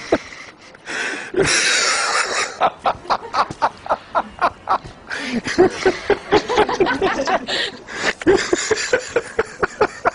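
Hearty human laughter, several voices: fast repeated bursts of breath and voice with a breathy stretch about a second in.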